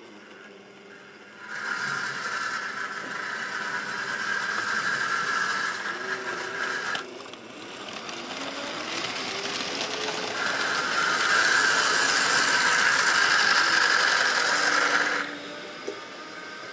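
Model railway diesel locomotive running past close by: its small electric motor whines and its wheels rattle over the track. The sound starts a couple of seconds in, drops away sharply about halfway, builds back louder and cuts off suddenly near the end.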